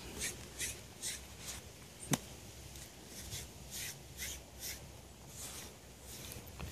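SleekEZ deshedding blade raked through a dog's coat in short repeated strokes, a scratchy brushing sound about two to three strokes a second. One sharp click about two seconds in.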